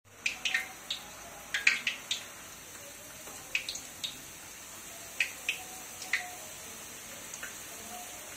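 Drops of chickpea-flour boondi batter falling from a perforated ladle into hot oil in a steel karahi, frying with a steady sizzle and irregular sharp pops and crackles, thickest in the first two seconds.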